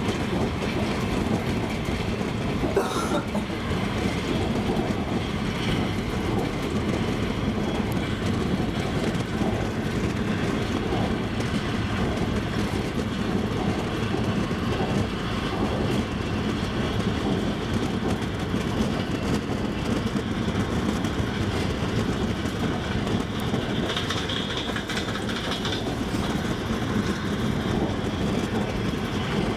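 Double-decker passenger train running along the track: a steady rumble of wheels on rails with the clickety-clack of the wheels knocking over rail joints.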